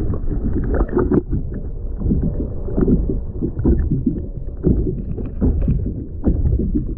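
Muffled water sloshing and slapping around a kayak, in irregular knocks and splashes.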